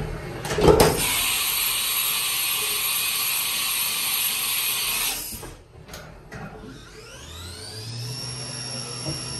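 Automatic tool change on a Haas CNC vertical mill. A sharp clunk is followed by a steady hiss for about four seconds, then a few clicks and knocks as the tool carousel swaps the face mill for an end mill. Near the end the spindle spins up with a rising whine that levels off into a steady tone.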